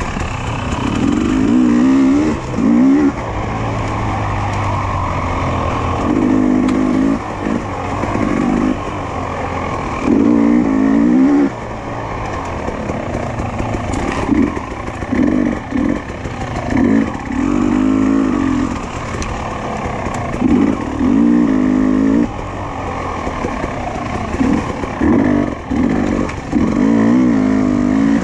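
Dirt bike engine under way, the throttle opened and closed again and again, so the revs rise and fall in short surges every second or two.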